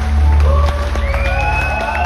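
Live rock band with electric guitars and bass holding a loud, sustained chord over a deep bass drone, with long notes that slide upward about a second in. The audience starts to cheer.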